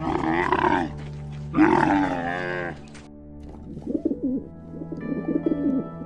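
A camel bellowing twice in long, wavering calls, then, from about halfway, pigeons cooing softly, over steady background music.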